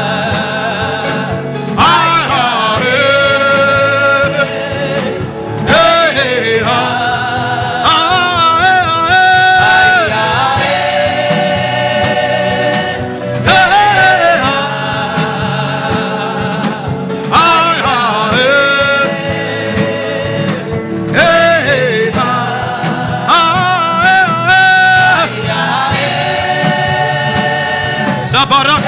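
Gospel worship chant sung over instrumental backing: sung phrases a few seconds long, each ending in long held notes, repeating one after another.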